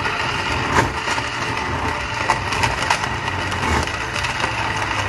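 Countertop blender running at full speed, its blades chopping a wet mix of onion, garlic, ginger, cinnamon bark and star anise in water into a spice paste, with irregular knocks and cracks of hard pieces against the blades and glass jar.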